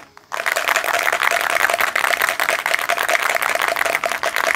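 Aerosol spray paint can shaken hard, its mixing ball rattling in a fast, steady rhythm to mix the paint before spraying. There is a brief break right at the start.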